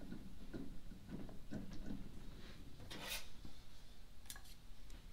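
Quiet metallic clinks and knocks of small parts being handled: the aluminium drop-gear cover of an Xtrac sequential transmission being worked off, with its loose recessed washers. There is one sharper clink about three seconds in and two small ticks a second later.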